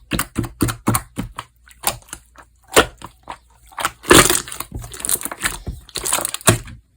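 Yellow marbled slime being squeezed and pressed by hand, giving a quick, irregular run of sharp crackles and squishy pops, busiest about four seconds in.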